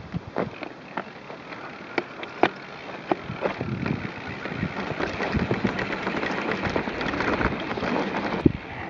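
Mountain bike rattling down a rocky dirt trail, picked up by a handlebar-mounted camera: sharp irregular knocks as the wheels strike rocks over a rushing noise that builds through the second half as the bike gathers speed.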